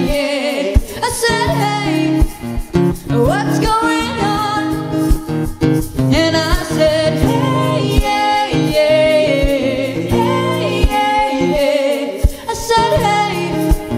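Live acoustic duo: a steadily strummed acoustic guitar under a man and a woman singing together, with long held, wavering sung notes.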